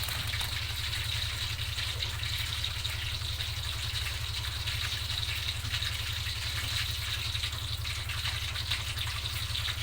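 Food sizzling and bubbling steadily in a pan on the stove, a continuous crackling hiss, with a steady low hum underneath.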